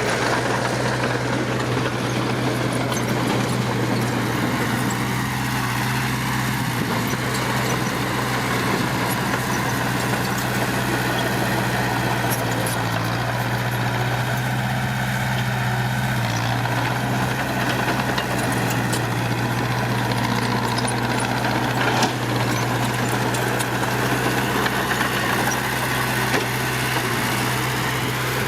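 Heavy diesel engine of an earthmoving machine running at a steady, unchanging speed, with a few faint metallic knocks, one clearer about two-thirds of the way through.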